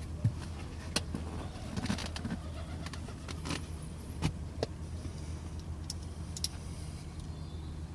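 Scattered clicks and light knocks of small car-interior parts and tools being handled and fitted, over a steady low hum.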